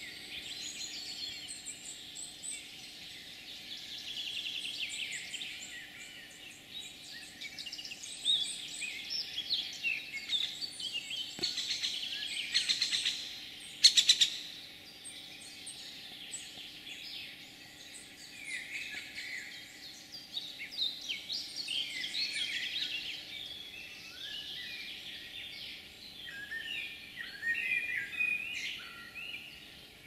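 Several small birds singing and calling at once in a morning chorus, a busy overlapping mix of high chirps and trills. About halfway through, a brief burst of sharp clicks is the loudest sound.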